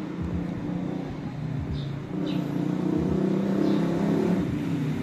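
A motor vehicle engine running steadily, with a few low bumps.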